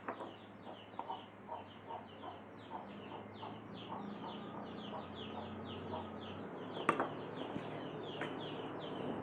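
Birds calling in the background: rapid short falling chirps, about three a second, mixed with lower clucking notes. There is a faint low hum that stops about six and a half seconds in, and a sharp click near seven seconds.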